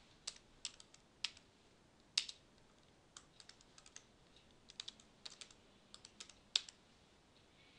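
Typing on a computer keyboard: irregular keystrokes, two of them clearly louder than the rest.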